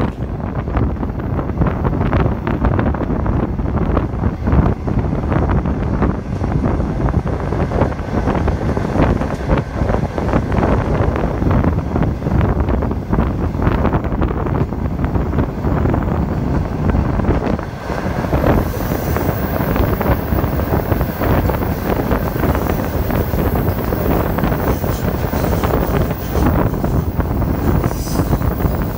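Wind buffeting the microphone over the steady rumble of a conventional passenger train's carriages running on the rails, heard from an open carriage window.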